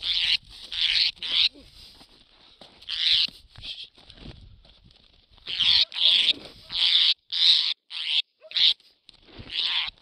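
Australian ringneck (twenty-eight parrot) giving about a dozen harsh, screechy squawks in clusters. These are the distress calls of a bird being cornered and grabbed by hand.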